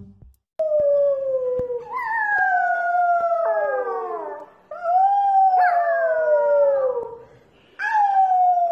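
Corgi puppy howling: three long howls, each sliding down in pitch, the last still going at the end.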